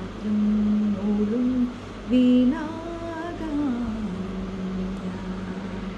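A woman humming a wordless melody in held notes that step and glide between pitches, settling on one long steady note near the end.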